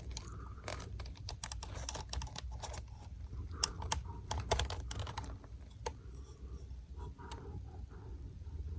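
Irregular run of light clicks and taps, densest in the first five seconds and sparser after, over a steady low hum.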